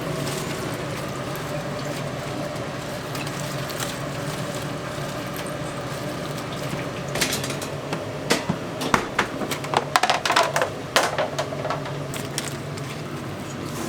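Kitchen work sounds over a steady machine hum: a run of sharp clinks and clatters of dishes and utensils from about halfway through, then the hum alone again near the end.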